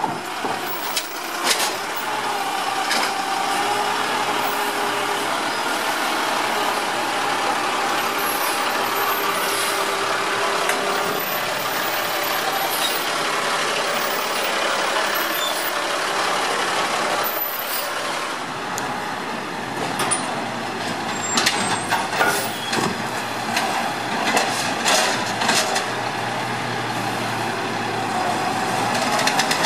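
Small automated side-loader garbage truck working: its diesel engine running with a steady hydraulic whine as the arm lifts and empties carts, then sharp clanks and knocks in the second half.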